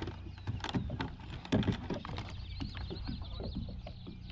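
Irregular knocks and clicks as a small catfish is handled and flops against a plastic fishing kayak while being unhooked, over a steady low hum.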